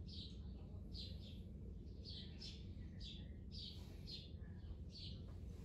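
A bird chirping repeatedly, short high chirps about twice a second, some in quick pairs, over a faint low steady hum.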